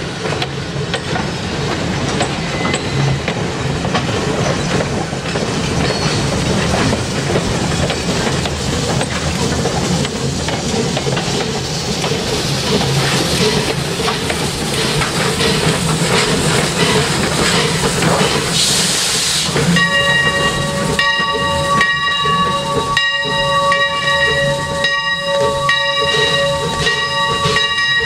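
Passenger coaches rolling past behind the Leviathan, a replica 4-4-0 steam locomotive, with a steady rumble and clickety-clack on the rails. About two-thirds of the way through, a short hiss of steam is followed by the locomotive's steam whistle blowing a long, steady blast.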